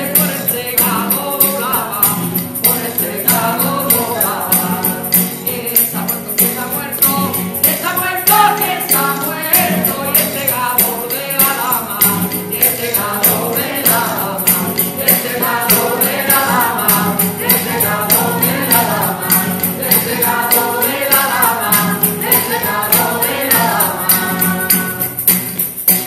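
A group of women singing a Spanish Christmas carol (villancico) together, with steady rhythmic hand clapping (palmas). An anís bottle scraped with a stick adds a bright rasping rhythm over the singing.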